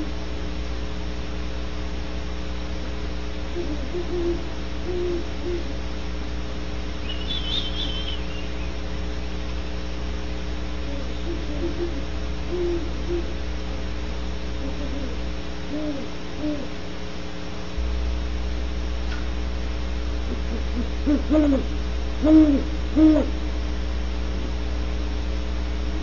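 Great horned owls hooting: repeated series of low hoots, with a louder run of hoots near the end. A brief high whistle comes about seven seconds in. A steady electrical hum runs underneath.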